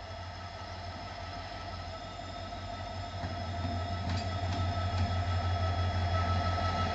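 Indian Railways diesel locomotive hauling a passenger train as it approaches, its deep engine rumble growing steadily louder, with a steady high whine over it.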